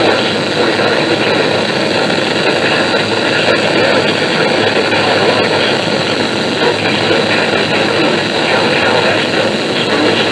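Steady, loud hiss of static from a NOAA weather radio receiver with no broadcast coming through.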